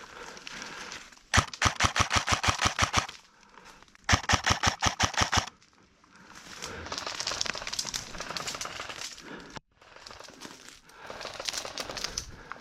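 Airsoft replica firing two full-auto bursts, each a rapid run of sharp, evenly spaced clacks lasting one to two seconds, the second starting about a second after the first ends. A softer rustling noise follows.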